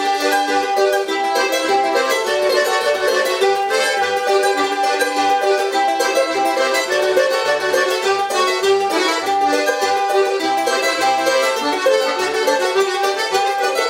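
Charango playing a Québécois reel, a continuous run of quickly changing plucked notes.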